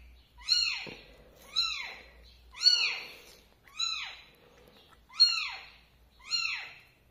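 A week-old kitten, eyes not yet open, mewing while held to a milk feeding bottle: six high, thin cries about once a second, each rising and then falling in pitch.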